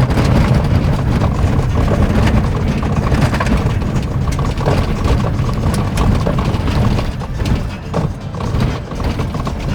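Car driving fast over a rough dirt and gravel track: a steady rumble of tyres and engine with constant rapid rattling and clicking of stones and the car's body, easing a little near the end.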